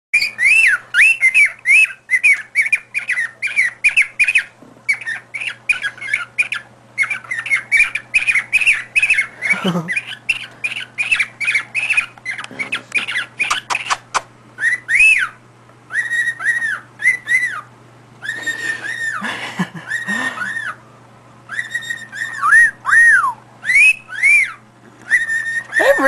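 Male cockatiel whistling non-stop in courtship of a female: fast runs of short rising-and-falling whistled notes, several a second, broken by longer held whistles and falling wolf-whistle sweeps.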